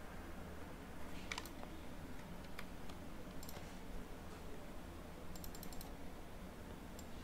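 Computer mouse clicks and keyboard key taps, scattered singly, with a quick run of about five a little after five seconds in, over a faint steady low hum.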